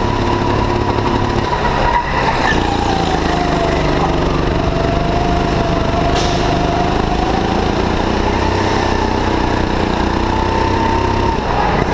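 Go-kart engine running under the driver's seat, its pitch falling after about two seconds as it slows for a corner, staying lower through the middle and climbing back as it speeds up near the end. A sharp click sounds about six seconds in.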